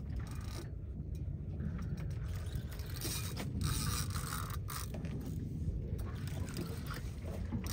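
A steady low rumble of wind and water around a small boat, with a louder hissing rush between about three and a half and five seconds in.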